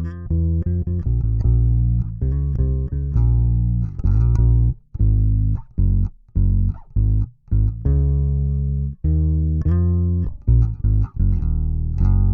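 Electric bass played through a DemonFx OctaBass octave pedal and recorded direct, with heavy low end. It plays a line of plucked notes, some held and some cut short, with brief silences between the short ones around the middle.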